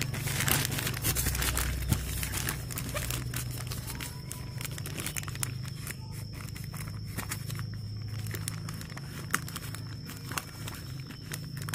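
Black plastic courier mailer bag crinkling and rustling as it is cut open with scissors, with scattered sharp snips and clicks.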